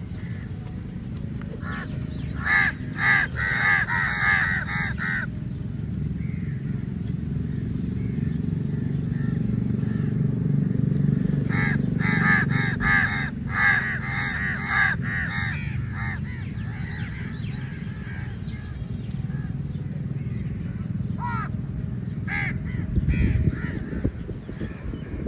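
A flock of crows cawing in two bursts of rapid overlapping calls, about two seconds in and again about twelve seconds in, with a few single caws later. A steady low rumble runs underneath.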